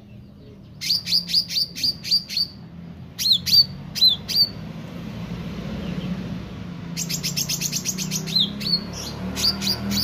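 Caged green songbird chirping in sharp, high notes: a quick run of about seven chirps about a second in, three down-slurred notes a little later, then a fast string of chirps over the last three seconds.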